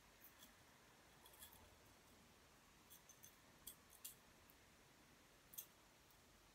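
Near silence with a few faint, scattered clicks, the most distinct a little after five and a half seconds in.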